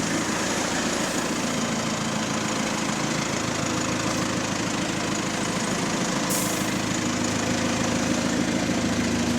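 Bus diesel engine idling steadily, heard from inside the passenger cabin, with a brief hiss about six seconds in.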